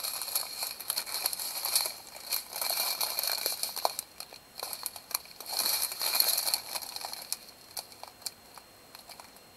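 Small plastic bags of diamond-painting drills crinkling as they are handled and shuffled, with scattered clicks from the drills shifting inside. The handling comes in two spells and dies down near the end.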